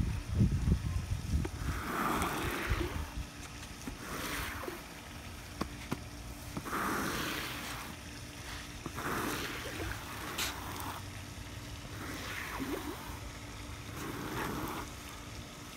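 Squeegee dragged through wet asphalt driveway sealer in repeated strokes, a wet scraping swish about every two to three seconds. Wind buffets the microphone in the first couple of seconds.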